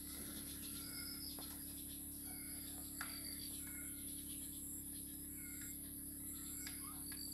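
Chickens feeding: a beak taps on a ceramic bowl, giving a few sharp clicks, one louder about three seconds in. Birds chirp in short high notes again and again, over a steady hum.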